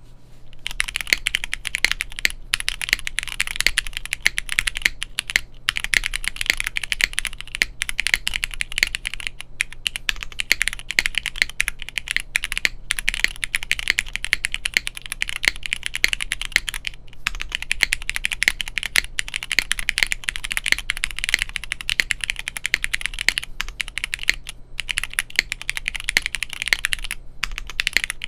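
Continuous fast typing on a gasket-mounted, plateless mechanical keyboard with Cherry MX Black Clear Top (Nixie) linear switches and GMK keycaps: a dense stream of key clacks, broken by a few brief pauses.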